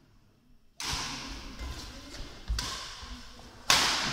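Badminton rackets striking a shuttlecock in a rally: about three sharp smacks a second or two apart, the first nearly a second in and the loudest near the end, each ringing on in the hall.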